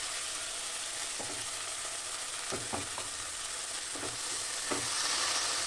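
Ginger and onion paste sizzling in hot ghee in a kadhai, with a spatula knocking and scraping against the pan every so often as it is stirred. The sizzle grows louder near the end.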